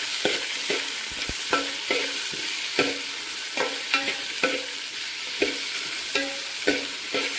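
Metal spoon stirring and sautéing sliced onions, tomato, green chilli and curry leaves in a stainless steel pan. The food sizzles in a steady frying hiss, and the spoon knocks against the pan about twice a second, each knock a short ringing clink.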